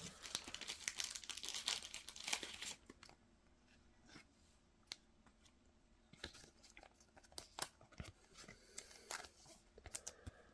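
Trading cards being handled: a soft rustling and sliding of cards for the first few seconds, then scattered light taps and small rustles.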